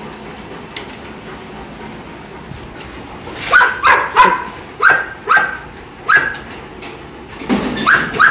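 Caged dogs barking: after a quiet start, a quick run of short, sharp barks begins about three seconds in and goes on to the end.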